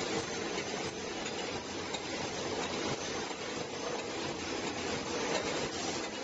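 Automatic pocket spring machine running, feeding out a continuous strip of fabric-pocketed mattress springs: a steady, dense mechanical clatter with faint ticks.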